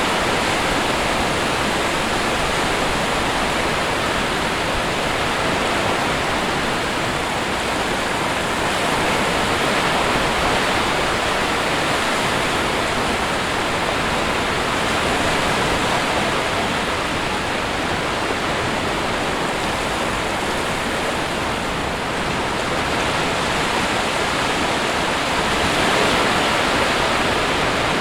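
Sea surf rushing on a shore, a steady wash of water that swells gently a couple of times.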